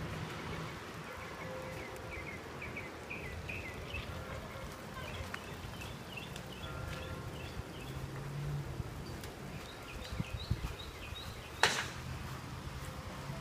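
Steady low rumble of storm wind under runs of short, high chirps from small animals calling over and over. A single sharp click comes near the end.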